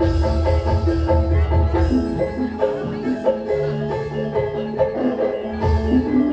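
Javanese gamelan music played loud through a sound system: bronze metallophones strike a quick, repeating pattern of short ringing notes over heavy, booming drum and bass beats.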